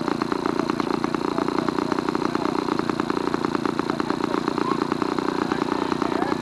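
A motor running steadily with a rapid, even pulse.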